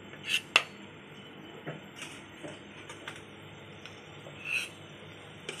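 A perforated steel serving spoon clinking and tapping against a plate and a steel steamer pot as steamed momos are lifted out and served: two sharp clinks about half a second in, the second the loudest, then a few softer taps.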